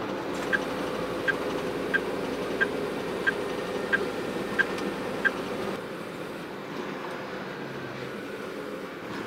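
Truck turn signal ticking inside the cab of a tractor-trailer: eight even clicks, about one and a half a second, over the steady drone of the engine and road noise as the truck takes the expressway exit. The clicking stops after about five seconds, and the drone drops a little soon after.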